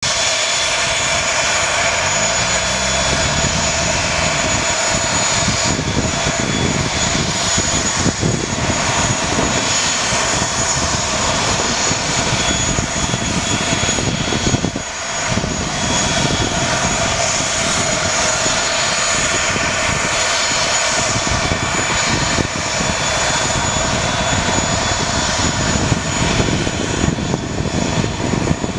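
The turboprop engines of an ATR 42-600 running steadily: a loud, even engine noise with a steady high whine over it.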